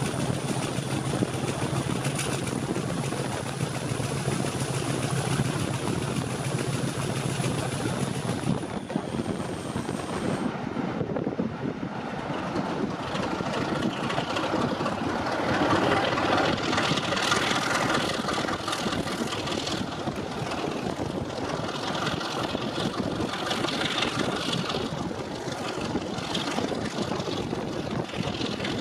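Diesel locomotive engine running, with a steady low hum and a thin high whistle. About eight seconds in, the hum drops away and the whistle glides down and fades. A rougher, louder engine sound then builds and peaks around the middle.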